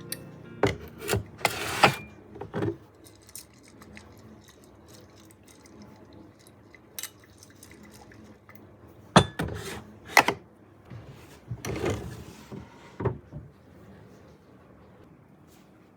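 Light clinks and knocks of small hard objects being handled, in two short clusters: one about a second in and one from about nine to thirteen seconds in.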